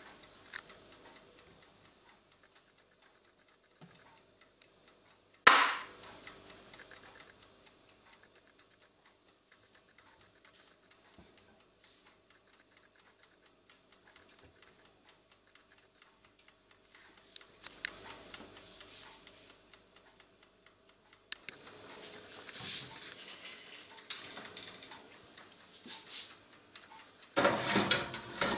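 Countertop electric oven: a sharp click as a knob is turned, then the mechanical timer ticking steadily over a low steady hum. Near the end, a loud metallic rattle as a pizza pan is slid onto the oven's wire rack.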